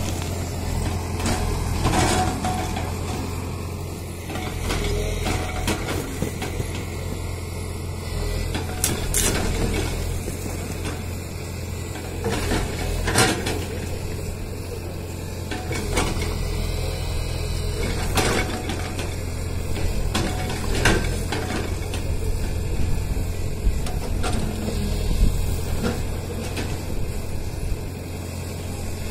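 Tata Hitachi mini excavator's diesel engine running steadily while its bucket breaks up a concrete roof slab and brick wall, with repeated sharp knocks and cracks of concrete scattered through.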